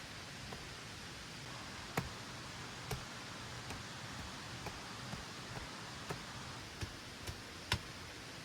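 Steady rain hiss with large drops tapping irregularly, the sharpest taps about two seconds in and near the end.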